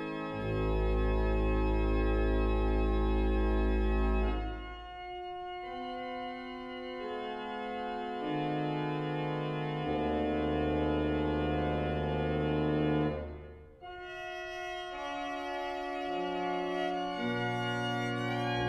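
Organ playing sustained chords. A deep pedal bass sounds under the loudest chords, during the first four seconds and again from about ten to thirteen seconds in, with softer chords between.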